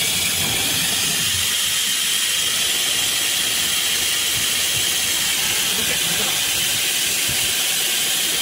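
CNC router with an automatic tool-change spindle running while it taps holes in a metal bar: a steady, even hiss.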